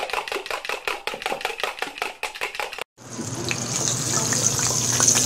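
Rapid knife chopping on a board, about five strokes a second, stopping about three seconds in. After a brief pause, hot oil starts sizzling, a steady hiss with scattered crackles.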